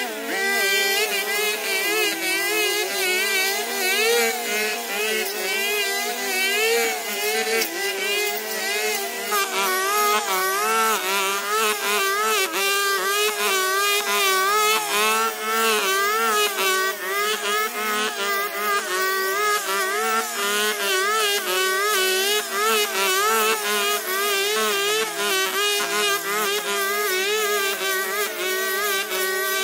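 Two petrol brush cutters running together, their engines' pitch rising and falling over and over as the operators work the cutting heads through tall, thick grass.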